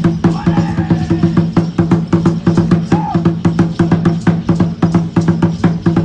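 Drum-driven percussion music with fast, even beats, about four a second, over a steady low held drone. It accompanies Aztec-style feathered dancing.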